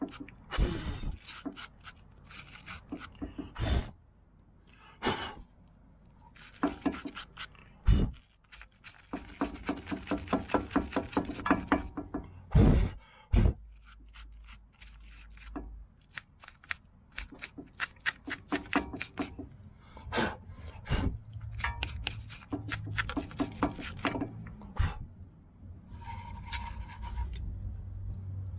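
Metal hand tools clinking and scraping against a car's front brake caliper and its bracket, with a run of fast, even clicks and several sharp knocks.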